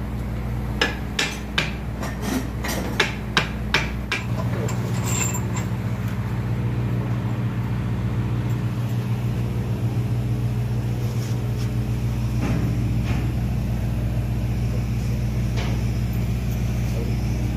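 Hammer blows, about two or three a second, during the first four seconds, over a steady low machinery hum. After that the hum carries on alone and louder.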